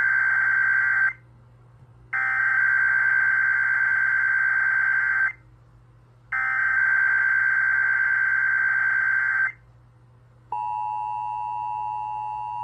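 Emergency Alert System SAME header: digital data bursts of about three seconds each, separated by one-second gaps, with the first already under way and two more complete ones following. Near the end the EAS two-tone attention signal (853 and 960 Hz) starts as a steady dual tone, announcing a Required Weekly Test.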